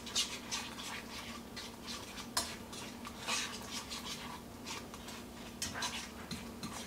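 Light, irregular scrapes and clinks of a utensil against a frying pan as omelet eggs are stirred in it.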